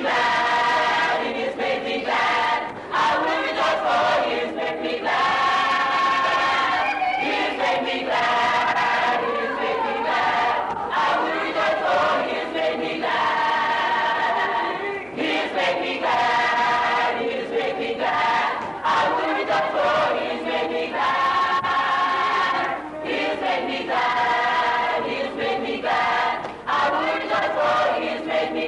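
A choir singing, the voices holding long notes in phrases of a second or two with short breaks between them.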